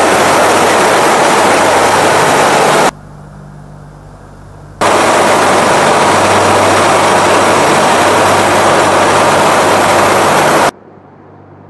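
Loud steady roar of a Tu-95 bomber's turboprop engines with a low drone underneath. The roar drops away abruptly about three seconds in, returns about two seconds later, and cuts off again near the end.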